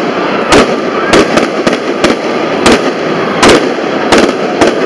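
Aerial fireworks going off overhead: a string of about nine sharp bangs at uneven spacing, roughly two a second, over steady crowd noise.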